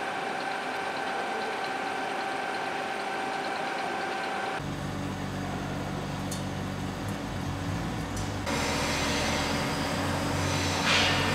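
Metalworking machine tools running. First comes a milling machine cutting a steel bar under coolant, with a steady whine over a hiss. About four and a half seconds in, the sound cuts to the deeper, steady hum of a large engine lathe turning a workpiece.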